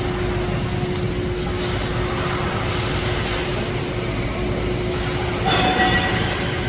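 Steady machinery rumble with a constant hum in a welding shop. About five and a half seconds in there is a brief burst of metal clanking and ringing.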